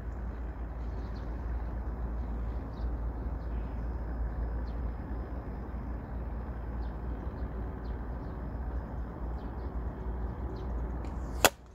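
Steady outdoor wind and background noise with faint short high chirps. Near the end comes one sharp crack, a slingshot ball striking the plastic water-bottle target.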